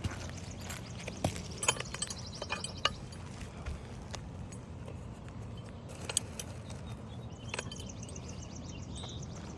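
Tool work on an asphalt shingle roof: scattered knocks and clicks, with two stretches of rapid crackling ticks, one in the first few seconds and one near the end, as a shingle strip is worked loose and replaced.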